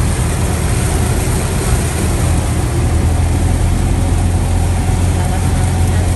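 Cessna 172's piston engine running steadily with a low, even drone, under a constant hiss of rain and airflow.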